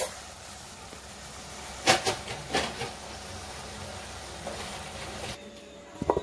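Flaked fish with tomato and peppers sizzling in a frying pan, a steady hiss with a few sharp clicks about two seconds in. The sizzle cuts off suddenly after about five seconds, and a couple of knocks follow near the end.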